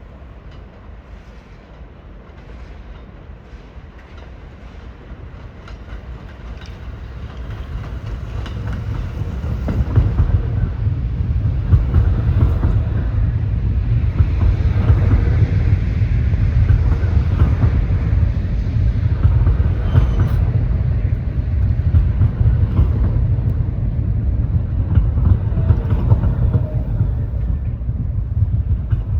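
New York City subway train approaching and running through the station: the rumble builds steadily for about ten seconds, then stays loud with the clatter of wheels on the rails.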